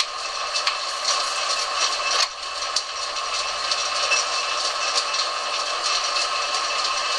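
Harrison metal lathe running steadily with a constant high tone, with scattered clicks and rattles as the tailstock is slid along the bed toward the work.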